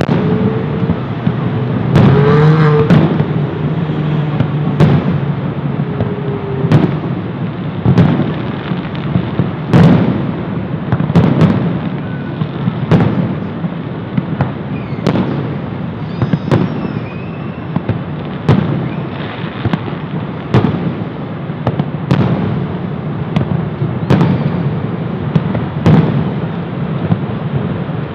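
Fireworks display: shells bursting in a steady series of sharp bangs, roughly one a second, over a continuous low rumble.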